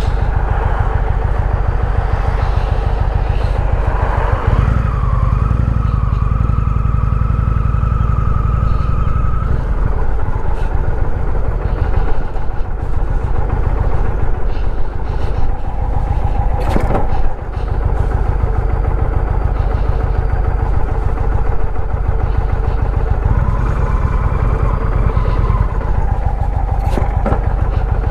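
Motorcycle engine running while riding, a loud steady rumble whose note shifts a few times.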